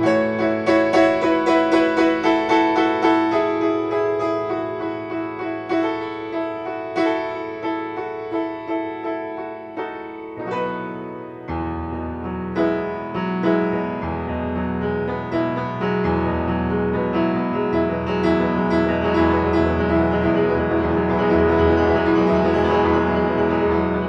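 Solo piano playing a flowing stream of quick, evenly struck notes. About eleven seconds in, low bass notes come in and the playing turns fuller and more sustained.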